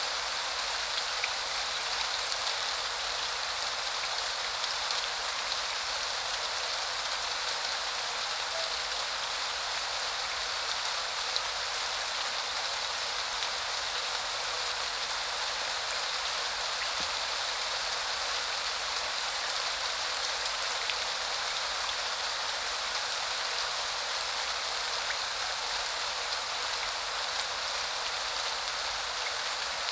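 Steady rain falling, an even hiss with scattered faint ticks of single drops.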